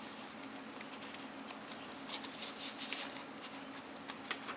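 Faint crisp clicks and rustles of paper being handled as a handmade junk journal's pages and tucks are turned, thickest in the middle and again near the end, over a low steady hum.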